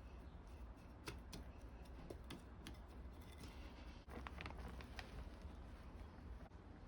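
Faint scattered clicks and light handling noises of hands working potting soil and pothos cuttings in a plant pot, with a cluster of quick clicks about four seconds in, over a low steady rumble.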